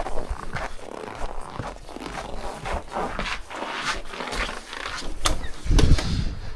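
Snow crunching and scraping in a quick, irregular series of strokes, with a heavier low thump near the end.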